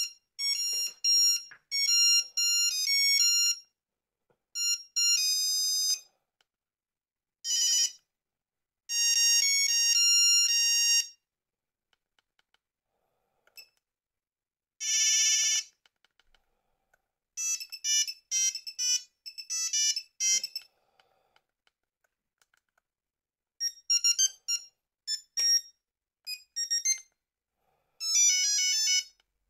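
Nokia 3330 mobile phone playing its monophonic ringtones through its small speaker: short runs of high beeping notes, several different tunes one after another with pauses between, one of them buzzier than the rest.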